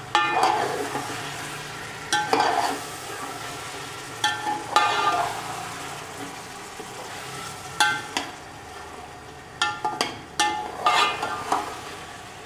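A metal spatula scraping and clanking against a large metal cooking pot as chicken is stirred and fried in a thick spice masala, over a steady sizzle. The strokes come irregularly, every second or two, each ringing briefly off the pot.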